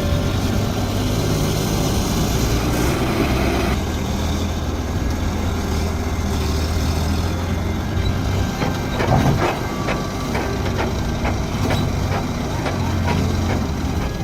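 Heavy vehicle engine running steadily with a low hum, joined about eight seconds in by a run of sharp knocks and clatter.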